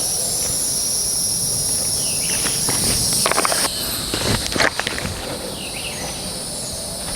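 Insects droning steadily in high-pitched bands, with a few short scuffs and clicks of footsteps or gear handling a little after the middle.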